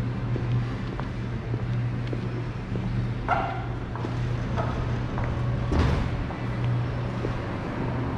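Shopping-street ambience: a steady low hum with a short pitched call about three seconds in and a brief, louder sharp sound near six seconds.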